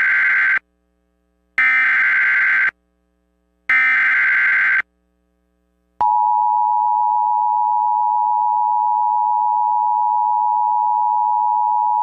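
Emergency Alert System SAME header data: three rasping bursts of digital data tones, each about a second long with short gaps, the first already under way. About six seconds in, the steady two-tone EAS attention signal starts and holds without a break.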